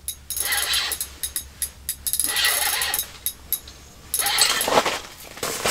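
Spinning reel on an ice-fishing rod being cranked in four short spurts, its gears clicking and rasping, as a hooked fish is reeled up through the ice hole.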